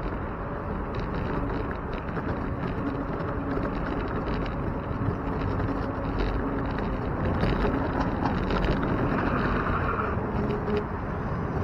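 Wind rushing over a bike-mounted camera's microphone while riding, with rattles and ticks from the bicycle rolling over the pavement. A brief higher-pitched whine comes in about nine seconds in.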